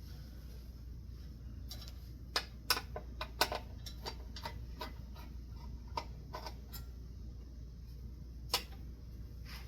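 Sharp metallic clicks and taps of small screws and light-kit parts being handled and fastened on a ceiling fan, a cluster a couple of seconds in and scattered ones after, over a steady low hum.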